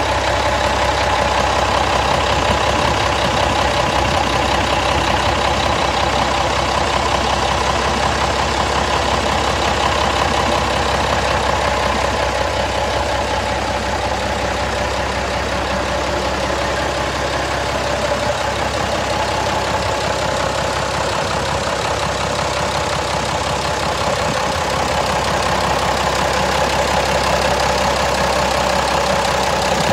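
Gardner 6LX six-cylinder diesel engine running steadily at an even speed, its firing heard as a fast, continuous pulsing.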